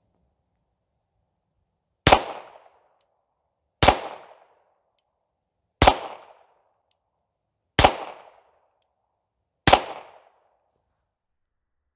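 Five shots from a Smith & Wesson 422 .22 LR semi-automatic pistol, fired slowly about two seconds apart. Each is a sharp crack with a short fading tail.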